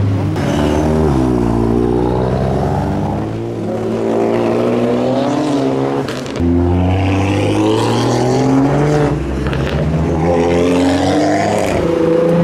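A car engine accelerating hard away through the gears. Its pitch climbs steadily, drops at a gear change about six seconds in and again about nine seconds in, then climbs again.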